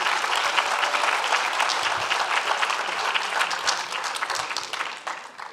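Large audience applauding, a dense even clapping that dies away over the last second.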